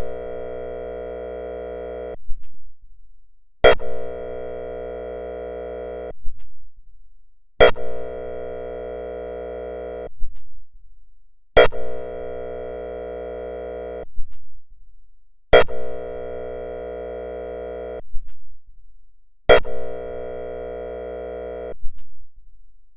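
Whelen Engineering ESC-864 sounding its airhorn signal: six steady blasts, each about two and a half seconds long and repeating about every four seconds, each starting with a sharp click.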